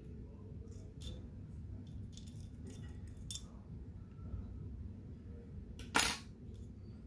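Small metal parts of a Colt 1911 CO2 BB pistol's frame clicking and scraping lightly as they are handled and fitted by hand, with one sharper click about six seconds in.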